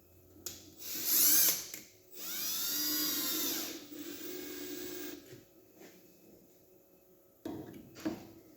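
Milwaukee cordless drill/drivers whirring in short bursts while driving 3-inch wood screws into wood, the pitch rising as the motor spins up. There is a brief burst about a second in, then a longer run about two seconds in that rises and then falls in pitch as it loads. Two short bursts follow near the end.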